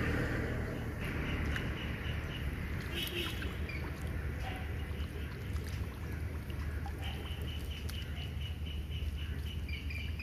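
Steady low drone of a running engine. From about seven seconds in, a high chirping call repeats rapidly over it.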